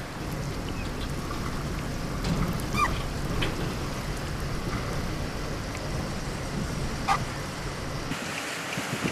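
Outdoor wind rumble on the microphone, with a couple of short bird chirps, one about three seconds in. The low rumble cuts off suddenly about eight seconds in.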